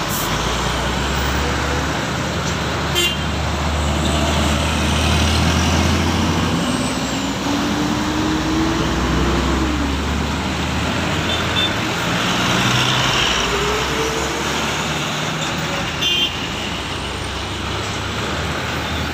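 Heavy diesel road vehicles passing close by: an intercity coach's engine rumbling as it pulls away, its pitch rising as it accelerates and then dropping, followed by a truck passing over steady traffic noise.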